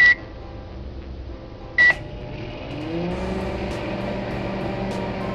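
Microwave oven beeping twice, then starting up: its hum rises in pitch and settles into a steady drone.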